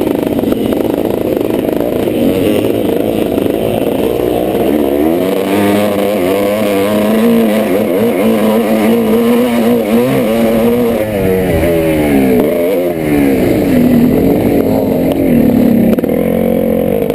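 A 1986 Yamaha YZ490's single-cylinder two-stroke engine running hard under race load. Its pitch rises and falls repeatedly as the throttle is opened and shut and gears are changed.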